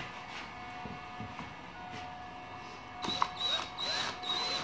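Craftsman cordless drill/driver whirring in a few short runs, starting about three seconds in, as it drives a screw into pine board.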